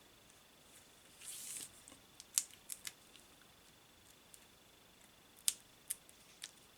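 Papercraft handling at a craft desk: a brief rustle of paper about a second in, then a few sharp little clicks and ticks in two clusters, the loudest about two and a half and five and a half seconds in.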